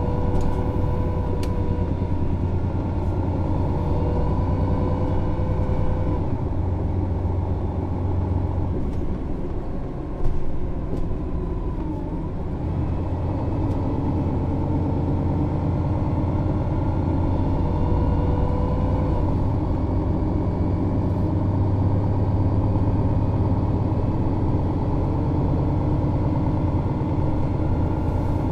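MAN Lion's City NÜ 273 city bus's diesel engine running under way, its pitch slowly rising and falling as the bus changes speed. The sound dips briefly about ten seconds in, followed by a short knock.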